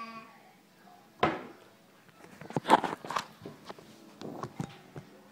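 Kitchen handling noises at a refrigerator: a single thump about a second in, a cluster of clunks and clatters around three seconds, and a few more knocks near the end.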